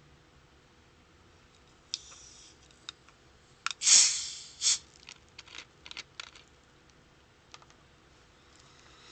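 A Pepsi being opened. There are clicks, then a sharp fizzing hiss about four seconds in that fades within half a second, with a second short burst just after. A string of light clicks and knocks from handling follows.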